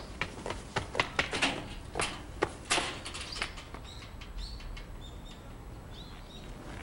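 Hurried footsteps of someone running on pavement, quick irregular steps that fade out about three and a half seconds in, followed by a few short high bird chirps.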